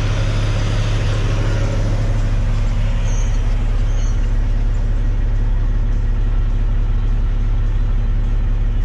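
Bed truck's diesel engine running steadily, a constant low drone with no change in pitch.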